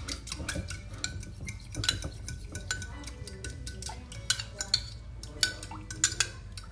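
A spoon stirring a mixture in a container, clinking irregularly against its sides, over soft background music.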